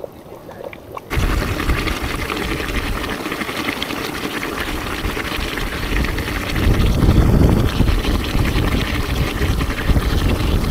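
Geothermal vent gushing and churning, a dense steady rush of hot water and steam. It starts abruptly about a second in and gets louder about six seconds in.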